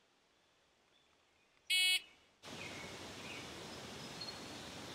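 Electronic shot timer giving one short beep, the start signal to fire, followed by faint outdoor background hiss.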